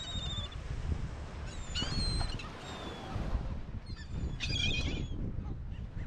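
A flock of gulls calling: groups of short, high, nasal calls near the start, about two seconds in and again between four and five seconds in, over a steady low rumble.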